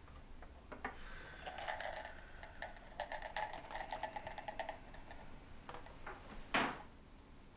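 Breakfast tray being set down and arranged: crockery and cutlery clinking and rattling in a run of small clicks, then a brief whoosh near the end.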